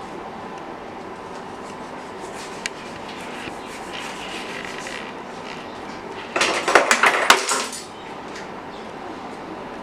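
Dishes and cutlery clattering, with a single click early on and a dense burst of clinks and knocks lasting about a second and a half, starting some six seconds in, over a steady background hiss.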